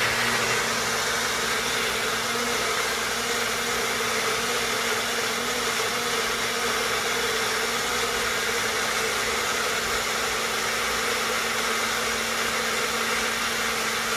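Electric kitchen blender running steadily at full speed, grinding tomato, with an even motor hum under a broad whirring hiss.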